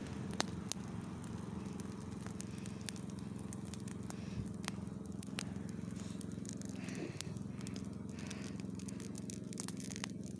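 Wood fire crackling, with many scattered sharp pops and snaps over a steady low hum.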